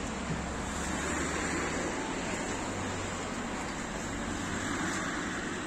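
Steady city street traffic noise, an even rumble and hiss of passing vehicles.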